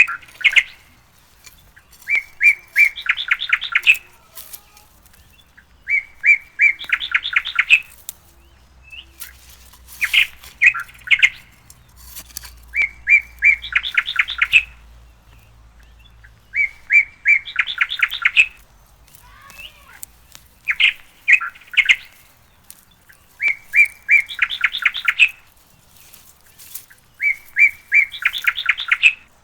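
A songbird singing the same short phrase over and over, every three to four seconds: a few separate notes, then a fast run of about eight high notes.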